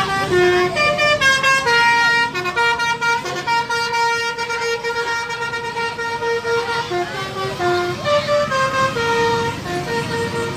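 Basuri musical bus horn sounding a telolet tune: a melody of steady notes stepping up and down, one after another, over the low rumble of the bus.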